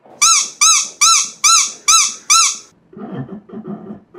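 Six identical high-pitched squeaks in a quick, even row, each rising then falling in pitch. They are followed near the end by a man laughing.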